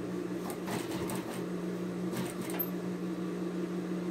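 Electric domestic sewing machine running steadily, its motor humming as it stitches fabric.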